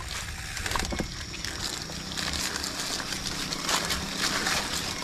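Mountain bike rolling over a wet, muddy dirt trail: continuous tyre and ground noise with frequent crackles and clicks.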